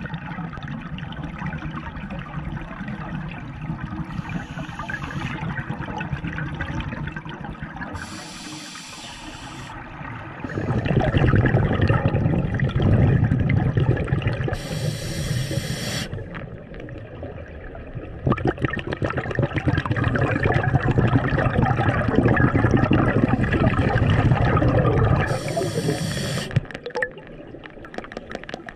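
Scuba regulator breathing heard underwater: short hissing inhales through the regulator, three of them, each followed by a long, loud rush of exhaled bubbles.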